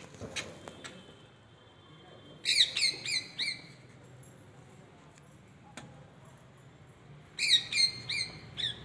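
A small bird calling: two runs of five or six quick, falling chirps, each run lasting about a second, the first about two and a half seconds in and the second near the end.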